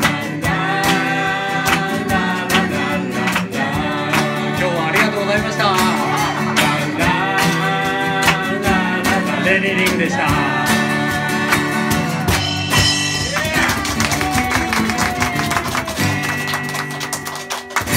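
Male and female voices singing together over a strummed acoustic guitar, live, with longer held notes in the last few seconds.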